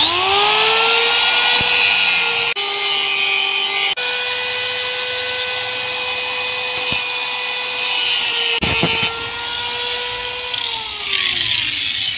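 Electric angle grinder spinning up and grinding down the steel rivet heads on a motorcycle clutch housing. It gives a steady high whine with a grinding hiss, with a knock about two-thirds of the way through. Near the end the whine drops in pitch. The rivets are being ground off so the clutch housing can be split.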